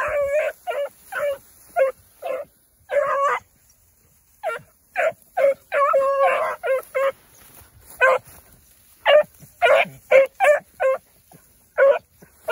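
Beagle puppies baying in high, short yelps, roughly one to two a second, with a few longer drawn-out cries among them. It is the hound voice of young beagles on a rabbit's scent trail.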